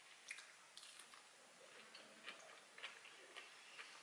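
Faint chewing with soft, irregular wet mouth clicks, a few of them about half a second apart.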